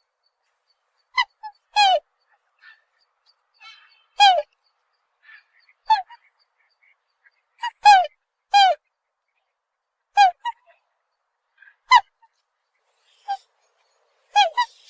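A swan calling: about a dozen short, separate calls, often in pairs, each dropping slightly in pitch, with pauses of a second or more between them.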